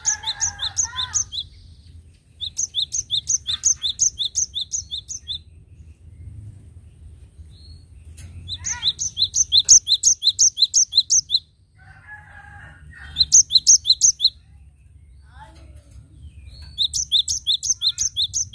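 Cinereous tit (gelatik batu) singing in full voice: quick runs of one high, sharp note repeated about six times a second, in five phrases of two to three seconds each. Softer, lower chattering comes between some of the phrases.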